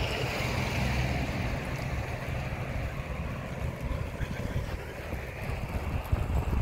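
Wind buffeting a moving camera's microphone, a low rumble that gusts unevenly, with a faint low hum that fades out in the first second or two.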